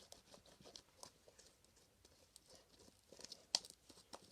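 Faint sticky slime being kneaded and pulled apart in the hands: scattered soft clicks and small crackles, with one sharper pop about three and a half seconds in.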